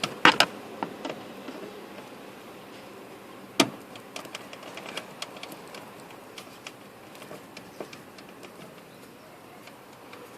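Scattered small clicks and taps of a screwdriver and car door parts being worked loose, with a couple of sharp knocks near the start and a louder one about three and a half seconds in.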